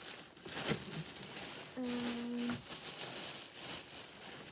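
Plastic packaging crinkling and rustling as plush toys are handled and unpacked. About two seconds in there is a short steady tone lasting under a second.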